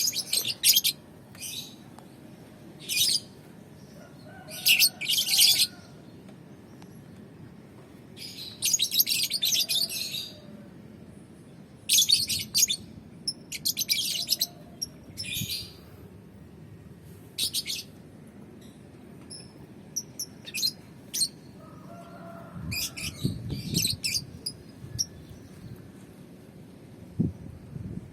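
Balibu lovebird chirping in short, shrill bursts, a cluster every second or few with quiet gaps between.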